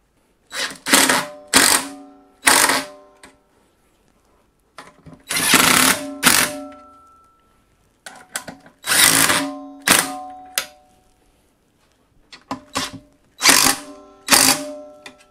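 DeWalt 18V cordless impact driver running in about ten short bursts, each under a second except one of about a second and a half around five seconds in, hammering the four seat-base bolts tight.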